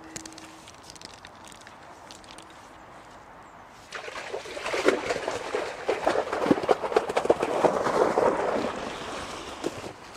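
Water splashing and pouring as a keepnet full of fish is hauled out of the lake, starting suddenly about four seconds in and easing off near the end.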